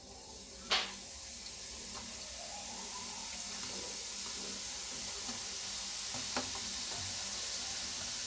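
Hot oil in a kadai sizzling as besan-coated peanuts are dropped in by hand, the sizzle building steadily louder. A sharp tap about a second in, and a smaller one later.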